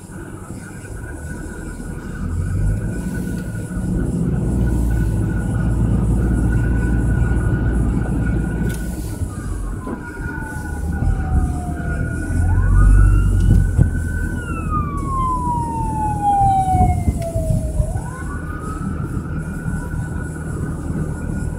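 Road and engine noise inside a moving car, with an emergency vehicle's siren wailing from about nine seconds in, sweeping slowly down and back up in pitch twice.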